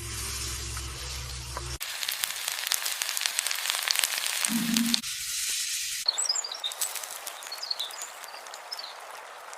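Food sizzling in hot oil, a dense crackle of small pops and spits, after a short stretch of background music. In the last few seconds it settles into a steadier hiss with a few short high chirps.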